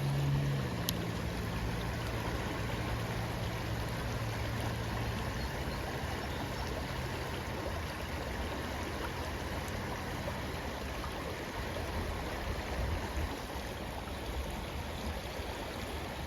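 River water flowing steadily. A low droning hum sits under it for the first five seconds or so, and a faint click comes about a second in.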